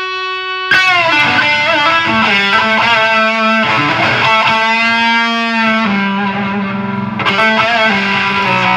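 Electric guitar played with heavy distortion through a Snake Oil Fine Instruments Marvelous Engine, a Rat-style high-gain distortion pedal. A held chord rings, then a new chord is hit under a second in, followed by bent, ringing notes and another hit near the end.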